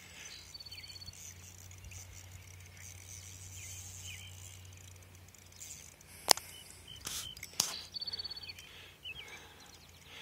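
Fishing reel ticking in two short runs of rapid, even clicks as the line is worked, with a few sharp knocks from handling the rod in between.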